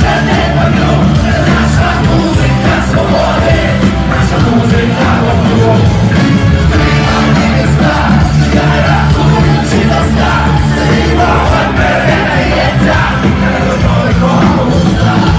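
Live ska-punk band playing loudly through the PA: electric guitars, bass, drums and brass, with a man singing and shouting into a microphone over them.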